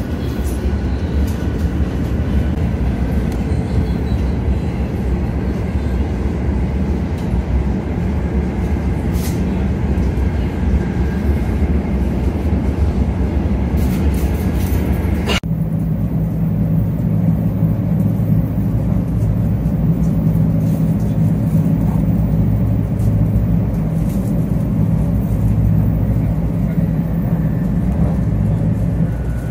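Cabin running noise of a 500 Series Shinkansen car in motion: a steady low rumble of the train on the track. About halfway through it changes suddenly to a duller, lower hum with less hiss.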